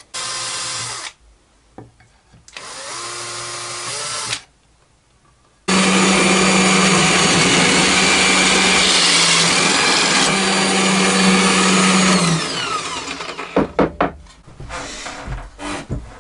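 Bosch bench drill press running with a hole saw, boring through a wooden board for several seconds, then winding down with a falling whine. Before it, two short bursts of a power-tool motor, the second rising in pitch; a few sharp knocks of the board being handled near the end.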